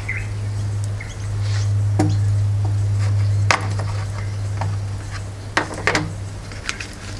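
A few light clicks and knocks from camp cookware and a food container being handled, over a steady low hum. The clicks come about two seconds in, again after three and a half seconds, and as a pair near six seconds.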